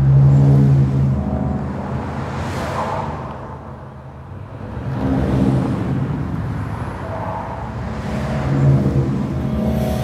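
Cars passing on a city street in three swells, the traffic noise turned into sustained pitched chords by a vocoder tuned to the street's own resonances, the tones rising and fading with each passing car.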